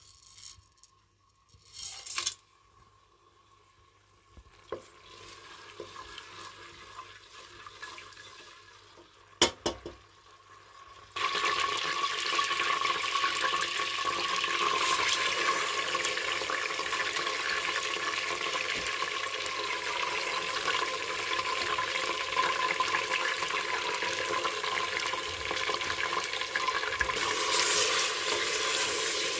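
Hot oil in an aluminium pressure cooker, quiet at first apart from a couple of clinks, then sizzling loudly and steadily from about 11 seconds in as whole spices hit it. Near the end the sizzle turns brighter as pieces of mutton go in and are stirred with a wooden spoon.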